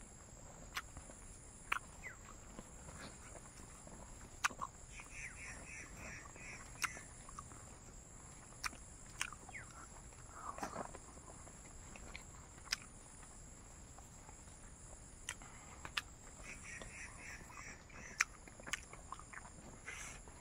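A person eating, with sharp mouth clicks and smacks every second or two. Twice in the background, a short run of about six quick, evenly spaced chirps from a small animal, over a steady high whine.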